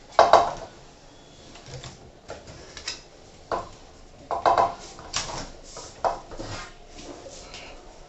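Screwdriver and aluminium sliding-door frame clinking and scraping in a string of short, irregular metal knocks while a replacement door roller is screwed into the frame.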